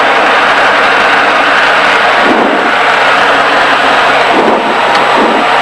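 Steady engine and propeller drone of a Diamond DA40 light aircraft in flight, heard inside the cabin.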